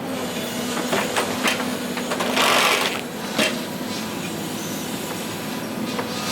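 Forestry harvester running steadily with a low hum while its head works logs: a few sharp knocks about a second in and again past halfway, and a louder rushing burst of about half a second just before halfway.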